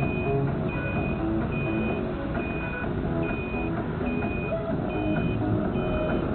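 A vehicle's electronic warning beeper sounding in even, short beeps a little faster than once a second, over steady engine and road noise.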